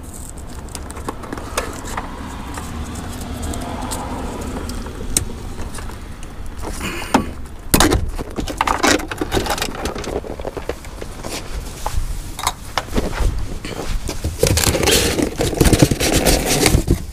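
Hands working plastic clips, tabs and connectors on a hybrid battery fan assembly: scattered clicks, rattles and scrapes, with a sharper knock about eight seconds in and a stretch of denser rustling and scraping near the end, over a low steady rumble.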